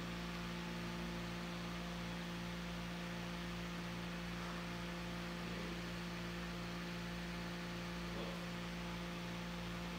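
Steady electrical hum with a faint even hiss: room tone with no other distinct sound.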